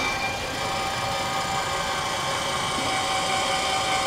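Electric linear actuator on a snowblower's chute deflector running steadily, a motor whine with several steady tones, as it tilts the deflector down.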